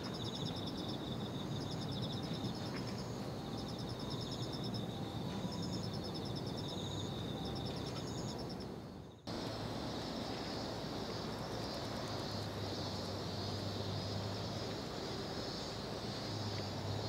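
Outdoor field ambience with high, rapid trilling calls repeating in short phrases. A sudden break about halfway gives way to a steady high-pitched drone over a low hum.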